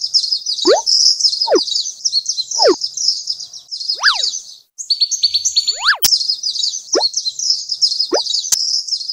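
Dense, high bird chirping from a cartoon jungle soundtrack, with short rising plops, several about a second apart. In the middle one long falling glide is followed by a rising one, and two sharp clicks come later.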